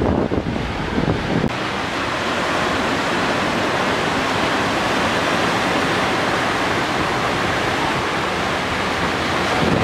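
Wind buffeting the microphone for about the first second and a half, then a steady hiss of ocean surf as waves break and wash up the sandy beach.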